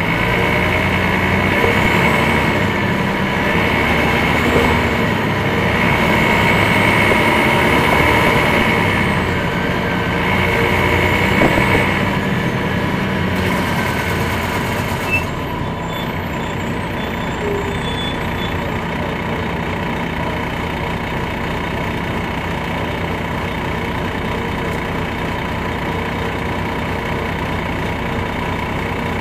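Detroit Diesel Series 60 diesel engine of an MCI D4000 coach, heard from inside the cabin. For the first half the engine note rises and falls as the bus pulls. About halfway through it settles into a steadier, slightly quieter running.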